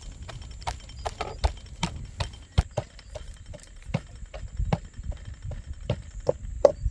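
Wooden masher pounding cooked yellow split peas in a metal bowl: steady dull knocks, about three a second.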